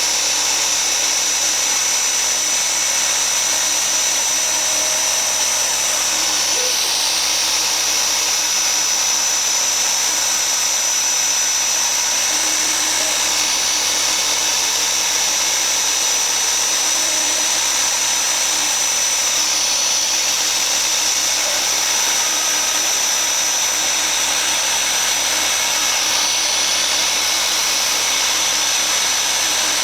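ASIMA AR 1200 CNC router's spindle running steadily with a high whine while it cuts a die base. A slight change in the hiss comes every six or seven seconds.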